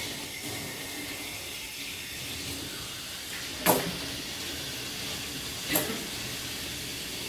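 Steady hiss with two sharp clicks about two seconds apart, the first the louder.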